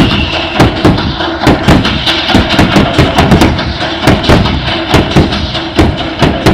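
Fireworks firing in quick succession: ground-launched comets and mines, sharp thuds about three a second, unevenly spaced, over the show's music.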